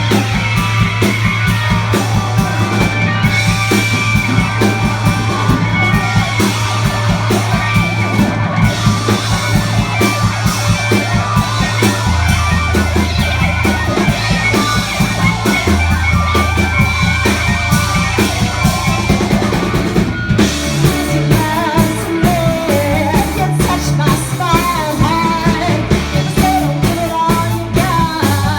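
Rock band playing: drum kit keeping a fast, busy beat under electric guitar and bass guitar. The bass holds long low notes at first, then from about 20 seconds in moves in short, changing notes as the song shifts section.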